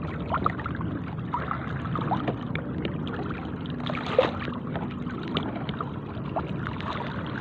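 Sea water sloshing and lapping around people wading waist-deep, with many small splashes and one sharper splash about four seconds in.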